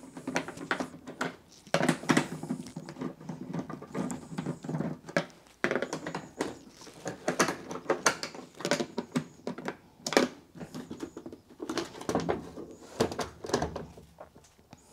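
Irregular clicks, taps and knocks of a 1/4-inch nut driver and hands working on a Whirlpool Cabrio washer's plastic top console, backing out its screws and lifting the console cover.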